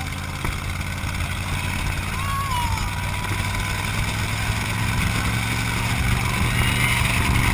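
Dune buggy engine running under load with rushing wind noise from the open vehicle's motion, growing steadily louder.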